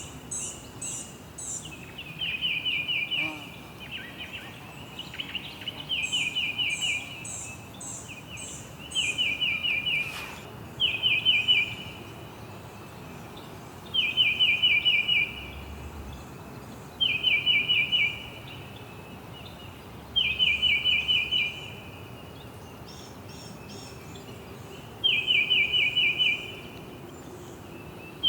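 Birds singing: about eight short phrases of rapid repeated chirps, each a second or two long and a few seconds apart, with a separate run of higher, thinner notes from another bird near the start and again a few seconds later, over a faint steady outdoor background.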